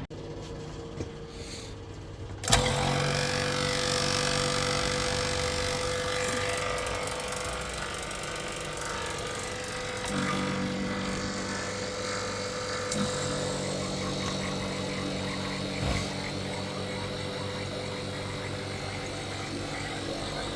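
Pressurised gas hissing out of a split air conditioner's refrigerant pipework as it is released through a valve. It starts suddenly about two and a half seconds in and runs on steadily with a faint whistling tone.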